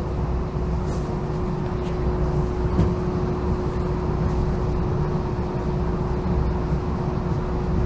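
Cabin noise of a Siemens S70 streetcar running on its tracks: a steady rumble with a constant hum throughout.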